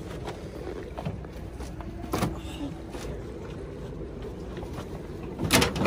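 Boat motor running steadily at trolling speed, with a sharp click about two seconds in and a cluster of clicks and knocks near the end.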